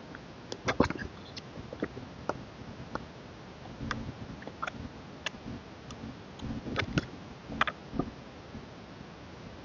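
Hands handling a K-pop album and its contents: scattered light taps, clicks and small knocks of cards, paper and packaging. The loudest knocks come about a second in, with more small clusters in the middle and near the end.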